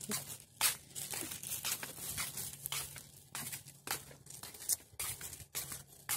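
Irregular crackling and rustling on a handheld phone's microphone while walking, about two or three crackles a second: handling noise and wind buffeting the mic.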